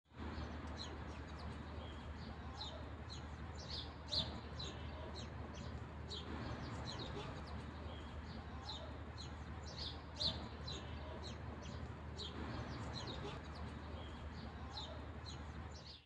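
Small birds chirping: many short, high chirps in quick succession, two of them louder, over a low steady hum. It cuts off suddenly at the end.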